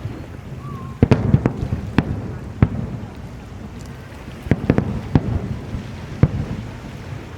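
Aerial firework shells bursting in sharp bangs, each trailing a low rumbling echo. A quick cluster comes about a second in, then a quieter stretch, then another run of bursts from about halfway on.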